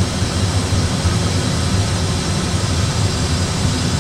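Steady cockpit noise of an Airbus A320 flying level on autopilot: a low hum under an even rush of air.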